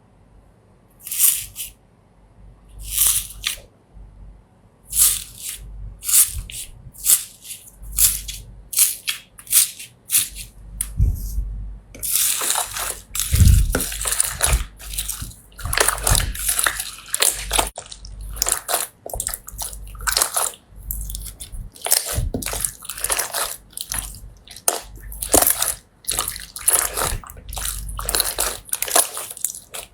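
Slime being pressed and squeezed by hand, making wet squishing and popping sounds. The first squishes come one at a time about a second apart; from about twelve seconds in they run together into a dense, continuous squishing.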